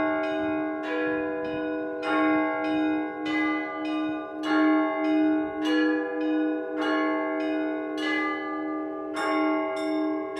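Orthodox church bells being rung: several bells of different pitch struck in a repeating rhythmic pattern, about two strokes a second, over the steady, pulsing hum of a lower bell.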